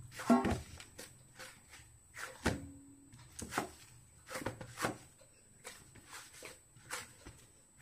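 Hand kneading and pounding warm rice-flour dough in a steel plate: irregular soft thumps and knocks of the dough and hand against the plate, one or two a second, the loudest near the start.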